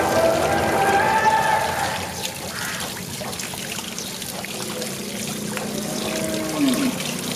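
Water running from an outdoor tap and splashing over goat offal as it is rinsed by hand, draining off into a concrete trough. A pitched background sound is heard over the first two seconds.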